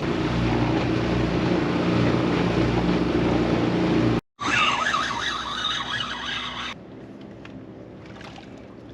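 Small four-stroke outboard kicker motor running steadily. The sound cuts out abruptly about four seconds in, returns as a noisier rush, and drops to a low hum near seven seconds.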